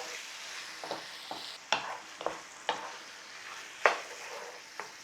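Chicken pieces sizzling as they fry in a pan of onion-paste curry base while a spoon stirs them, with scattered sharp clicks of the spoon against the pan; the loudest click comes near four seconds in.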